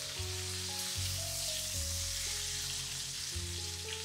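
Battered chicken thigh sizzling steadily in shallow oil in a frying pan, skin side down, under soft background music.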